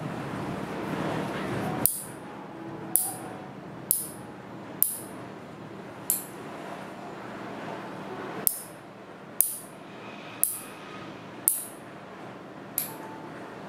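Fingernail clippers cutting a person's nails: a sharp snip roughly every second, about ten in all.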